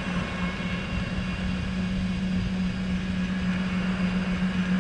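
Golf cart running: a steady low hum from its drive over a low rumble.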